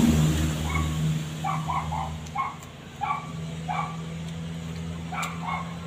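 A dog barking off-picture in short, high barks, about a dozen in irregular runs, over a steady low hum.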